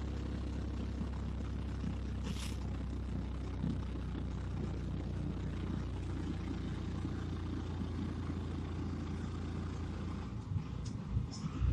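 Engine and road noise of a moving vehicle heard from inside it: a steady low drone, with a few brief knocks near the end.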